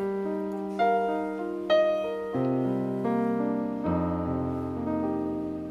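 Piano backing music playing a slow instrumental passage: a few struck chords and notes that ring on, with deep bass notes coming in about halfway, the music gradually growing quieter toward the end.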